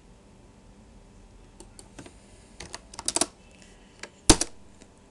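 Computer keyboard keystrokes: a few scattered key presses starting about a second and a half in, a quick run of them around three seconds, and one loud key strike a little after four seconds.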